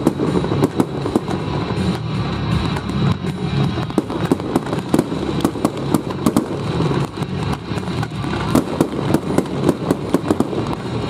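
Aerial fireworks going off in a dense barrage: shells and comets launching and bursting, many sharp bangs a second over a steady low rumble.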